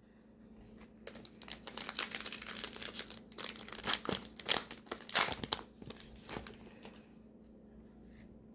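A 2025 Topps Allen & Ginter trading card pack wrapper being torn open and crinkled: a dense run of crackling, tearing rustles from about a second in until near the end.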